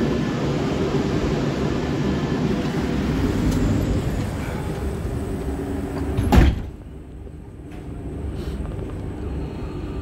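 Commuter train's sliding passenger doors closing with a sharp thud about six seconds in. Before it, a steady rumble from the stopped train comes through the open doorway; once the doors shut, it is much quieter.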